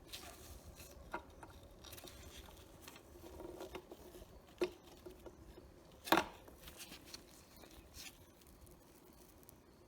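Light clicks, taps and rustling of things being handled by hand, with two sharper knocks about halfway through, the second the louder.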